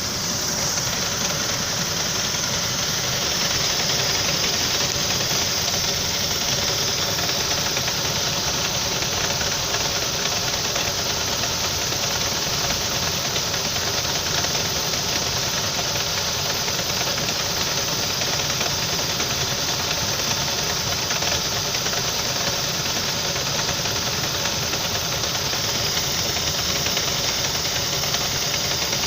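Saab 9-5 engine idling steadily with a constant knock. It has been knocking like this since the car was revved through a puddle and a belt came off.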